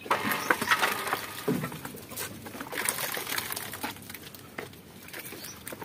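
Goats jostling and eating from metal feed pans: rustling, clicks and knocks, with soft bird calls mixed in.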